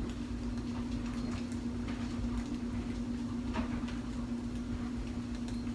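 A steady low hum, with a few faint clicks and knocks of kitchen work, one slightly clearer about three and a half seconds in.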